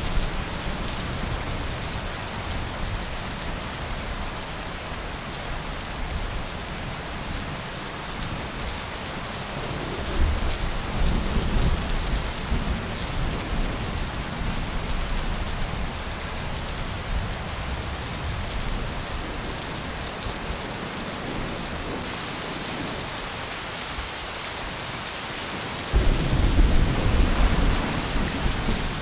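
Steady rain with thunder rumbling twice: a low rumble about ten seconds in, and a louder one that starts suddenly near the end.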